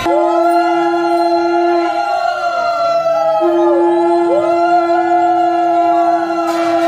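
Conch shells (shankha) blown together: one holds a steady low note that breaks off for about a second and a half near the two-second mark, while another rises and falls in pitch in long swells.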